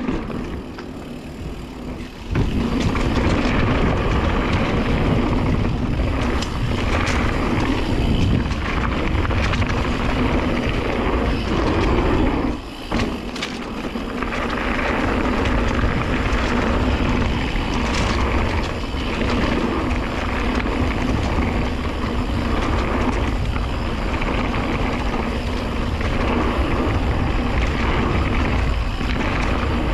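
Mountain bike being ridden down a rocky trail: steady wind noise on the camera microphone over the rumble of tyres on rock and dirt, with occasional knocks from the bike, getting louder about two seconds in.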